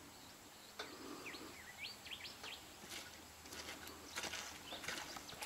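Faint outdoor ambience: a few short rising bird chirps in the first half, then a run of faint splashes as a crocodile thrashes a large fish in its jaws at the water's surface.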